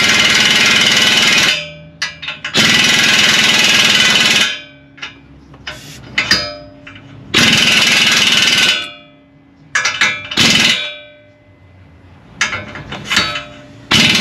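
Impact wrench hammering in four bursts of one to two seconds, the longest about three seconds in, with tool clinks and knocks between them, as it runs down suspension nuts.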